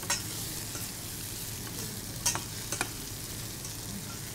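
Onion-tomato masala with drumstick pieces sizzling in oil in a stainless steel pan, stirred with a metal spoon that clinks against the pan a few times.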